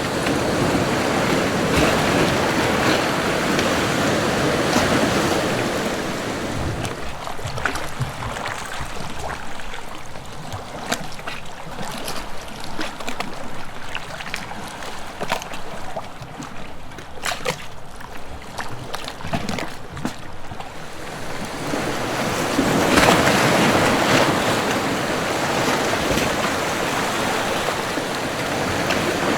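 Sea waves washing onto a rocky shore: a surge of surf, then a quieter stretch of splashing and dripping water, then another wave surging in about two-thirds of the way through.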